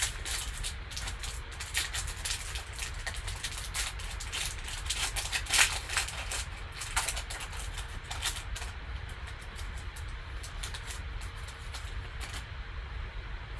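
Crackling and rustling of a trading-card box's plastic wrap and cardboard packaging being torn and opened by hand, with irregular sharp crinkles that come thickest in the middle and thin out near the end.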